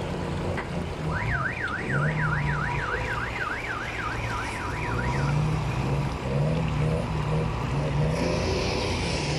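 An electronic siren-like alarm warbles up and down in pitch about three times a second for some four seconds, starting about a second in, over the steady rush of the river.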